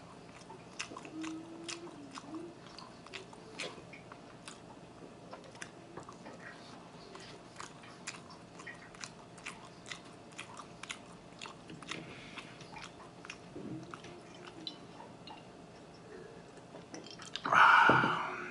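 Close-miked chewing of garlic cheese bread: a steady run of small wet mouth clicks and smacks. A louder, breathy noise comes briefly near the end.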